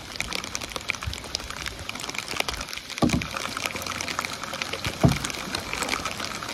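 Rain falling on the water and the kayak, a dense patter of drops, while a kayak paddle dips and splashes. Low thumps come about three and five seconds in.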